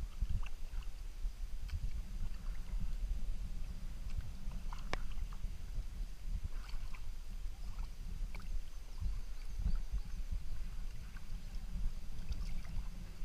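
Kayak being paddled across calm water: scattered short splashes and drips from the paddle over a steady low rumble.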